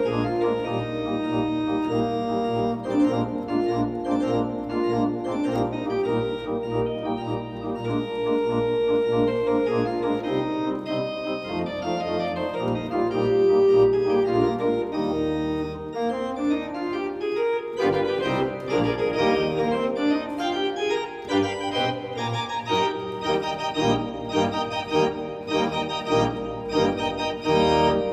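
Allen Historique two-manual digital organ playing: held chords over a low bass, then rising runs about two-thirds of the way in, followed by quicker-moving passages.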